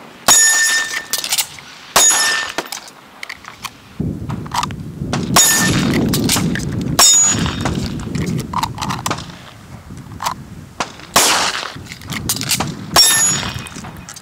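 Six handgun shots, a second or more apart: two close together near the start, two in the middle and two near the end, with a longer gap between the middle pair and the last pair. Wind buffets the microphone with a low rumble through the middle.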